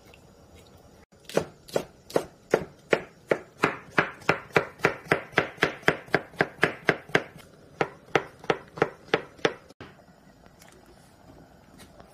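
Kitchen knife slicing zucchini on a wooden cutting board. An even run of sharp strikes, about three to four a second, starts about a second in and stops near the end.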